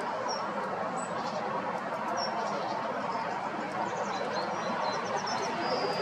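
Faint, high bird chirps over a steady background hiss: single short chirps about a third of a second and two seconds in, a quick run of short high notes between four and five seconds in, and a longer high note near the end.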